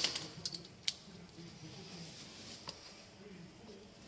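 Metal clicks and clinks of hand tools being handled during work on a car engine: a cluster of sharp clicks in the first second, one more about two-thirds of the way through, and another at the very end.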